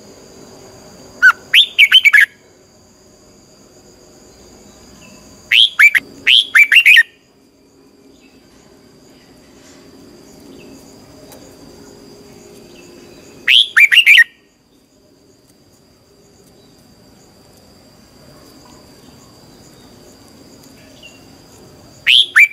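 Red-whiskered bulbul singing: four short bursts of quick, loud, whistled notes, each bout a few notes long, spaced several seconds apart.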